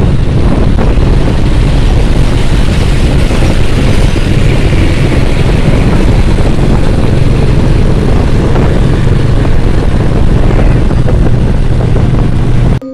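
Loud, steady wind rush over the microphone with the low drone of a TVS Apache 160 motorcycle's engine while riding at road speed. It cuts off suddenly at the very end.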